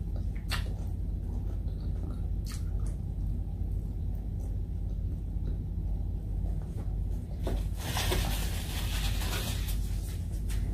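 Mukbang eating sounds: food being chewed and picked up by hand from a plastic-covered table, with a few small clicks and a louder rustle near the end, over a steady low hum.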